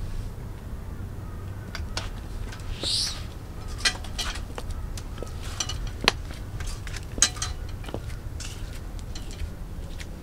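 Footsteps in 6-inch stiletto platform sandals: irregular sharp heel clicks on a concrete footpath and through a doorway, with a brief high squeak about three seconds in.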